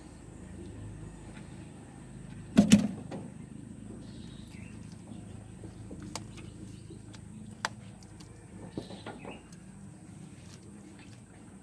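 A civet feeding on its prey on wooden slats: a loud double knock about two and a half seconds in, then a few sharp clicks, over a steady low hum.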